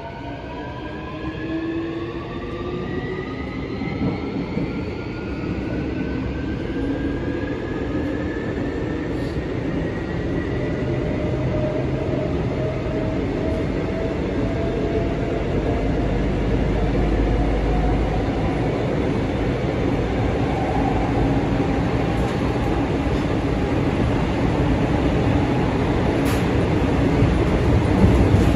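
Incheon Subway Line 1 train heard from inside the car as it gathers speed: a whine of several tones rises in pitch over the first ten seconds or so, over a rumble of wheels on rail that grows steadily louder.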